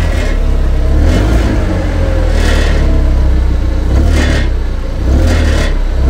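Audi TT Mk1 engine running with a metallic rattle from the exhaust underneath, which swells in four short bursts about every one and a half seconds. The rattle comes from a loose catalytic converter heat shield whose rear bolts are missing.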